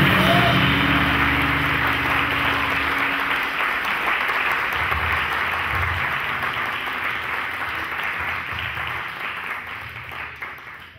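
Audience applauding at the end of a live jazz performance, with low notes from the band ringing out under the clapping for the first few seconds. The applause gradually fades toward the end.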